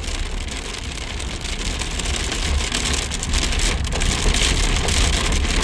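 Heavy rain pelting the outside of a vehicle from the thunderstorm's rain core, with scattered sharper hits, growing steadily louder. A low rumble runs underneath.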